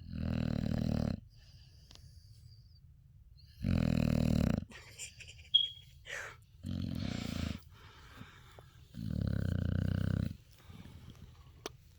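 Dog snoring in its sleep: four snores of about a second each, coming every two to three seconds. A brief sharp click about five and a half seconds in.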